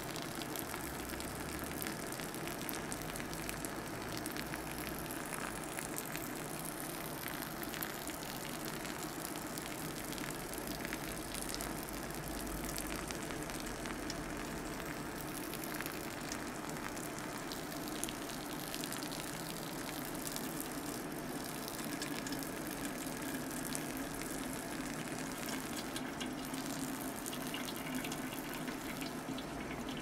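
A thin stream of hot water from a drip kettle trickling steadily onto ground coffee in a paper filter, wetting the grounds for the bloom.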